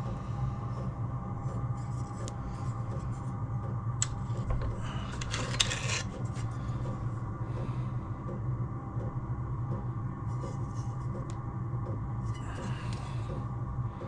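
Low steady hum with sparse handling noises of thin aluminium sheet and hand folding tools being worked: a sharp click about four seconds in, a short scrape a second or so later, and a light rustle near the end.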